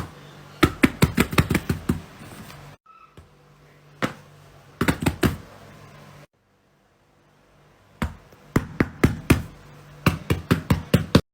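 Fidget toys being clicked and popped by hand: quick runs of sharp clicks, several a second, in short bursts broken by abrupt cuts.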